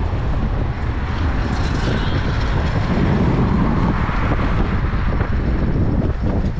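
Wind noise on the microphone and traffic noise while riding a bike along city streets: a steady, loud rush with no distinct engine note.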